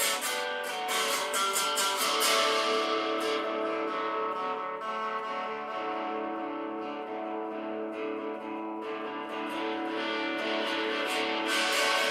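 Guitar strummed in a steady rhythm, easing into held, ringing chords in the middle before the strumming picks up again near the end.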